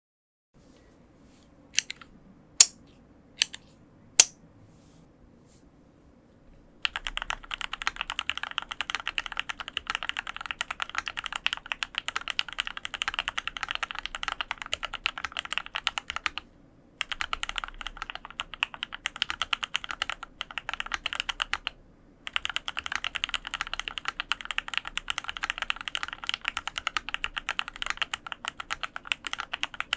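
Custom mechanical keyboard with an aluminium plate, lubed Gateron Yellow KS-3X47 linear switches and Hammerworks CRP R4 keycaps. It gives four separate sharp clicks about a second apart near the start, then fast continuous typing from about seven seconds in, broken by two brief pauses.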